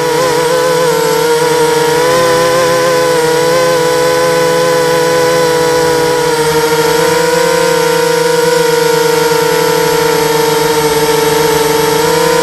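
250-size FPV racing quadcopter's brushless motors and propellers whining steadily in flight. The pitch wavers with small throttle changes over the first few seconds, then holds steady.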